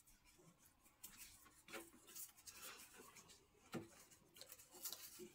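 Near silence, with faint scattered clicks and scratchy rubbing from people eating by hand at a table.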